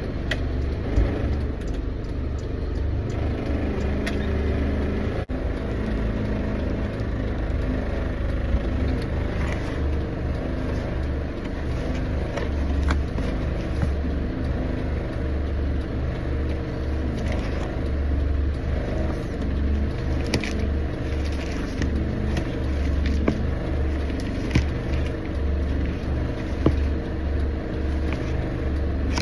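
Motor vehicle on the move, heard from inside: a steady low rumble of engine and road noise, with a few light clicks and knocks here and there.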